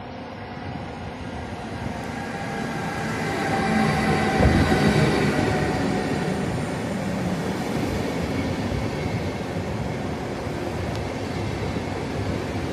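RegioJet express train, an electric locomotive hauling passenger coaches, rolling past along the platform. It grows louder as the locomotive approaches and is loudest about four and a half seconds in as it passes. After that the coaches' wheels run by in a steady rumble.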